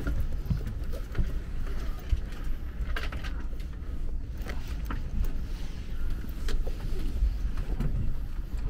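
Steady low hum inside a parked Airbus A320's cabin, with scattered clicks and knocks of passengers handling bags and seats as they move down the aisle.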